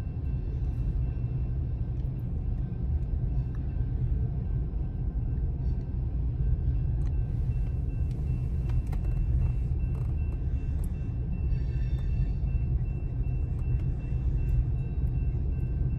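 Freight train of covered hopper and tank cars rolling through a level crossing, a steady low rumble heard from inside a stopped car, with a faint steady high tone above it.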